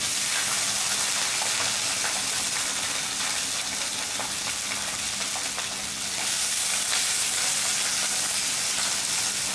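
Freshly chopped pirandai (veld grape) stems and whole garlic cloves sizzling in hot sesame oil in a clay kadai: a steady, dense frying hiss.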